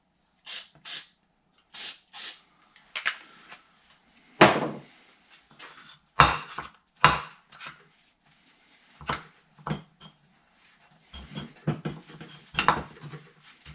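Four short spritzes of an aerosol can of dry silicone spray in the first couple of seconds, then a series of separate metallic clanks and knocks as metal parts and tools are handled and set down, the loudest about four and a half seconds in.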